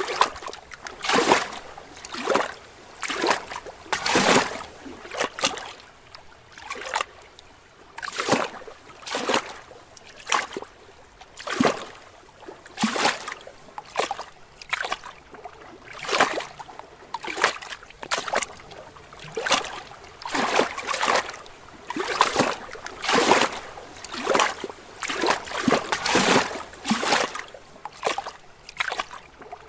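Small lake waves lapping and splashing against rocks at the water's edge, in short uneven splashes about once a second.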